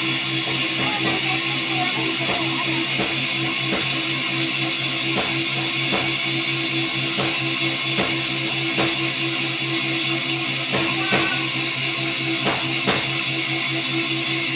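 Guitar-and-drum music with a regular beat, over a steady low hum.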